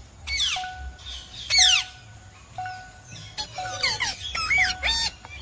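Parrot squawking: two harsh screeches falling in pitch, then a quicker run of chattering squawks and whistles.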